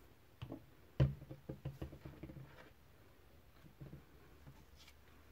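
Light knocks and clicks from handling small paper craft pieces over a craft mat, a quick cluster with the loudest knock about a second in, then a couple of faint ticks near the end.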